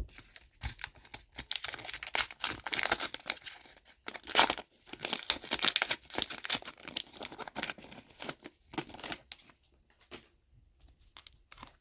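A trading card pack wrapper being torn open and crinkled, in dense rustling that thins out near the end.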